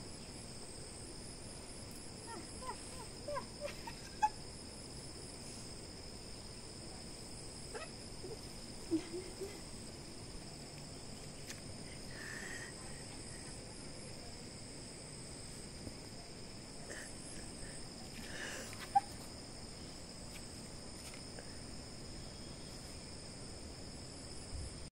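Steady high-pitched insect chirring, like crickets, with a few faint short chirps and brief scuffs, and one sharp click about three-quarters of the way through.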